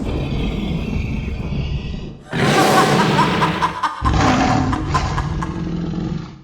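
Loud low rumbling sound effect, then after a short drop about two seconds in, two louder noisy rushes with a pitched tone in them, cutting off suddenly near the end.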